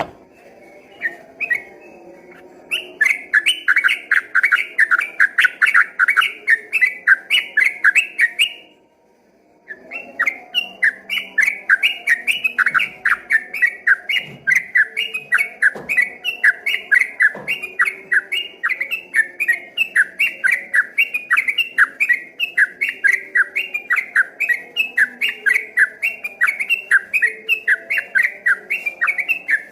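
Yellow-vented bulbul (trucukan) singing its fast rolling 'ropel' song: loud chirping notes repeated rapidly, about three a second, breaking off for about a second near a third of the way in, then running on unbroken.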